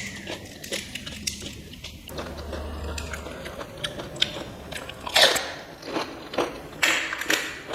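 A person biting and chewing crisp fried panipuri (fuchka) shells close to the microphone, with many small crackly crunches and louder bursts of crunching about five and seven seconds in.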